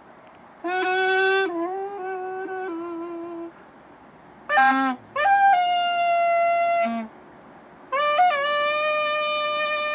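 A Korean piri, a double-reed pipe, playing a slow melody of long held notes with pitch slides, in four phrases separated by short pauses.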